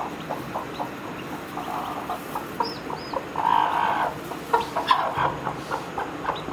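Broody hen clucking in short, repeated calls, louder for a moment a little past halfway, with a couple of brief high peeps about a third of the way in.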